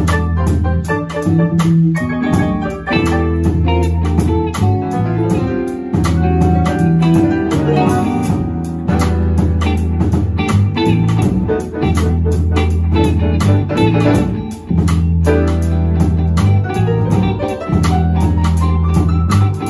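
Live jazz combo playing an instrumental tune: electric bass holding long low notes under electric guitar and grand piano lines, with a drum kit keeping time on the cymbals.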